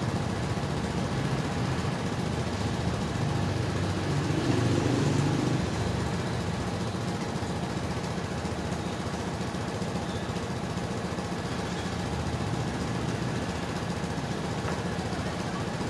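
A motorbike engine running steadily, with a short rise in level about four to five seconds in.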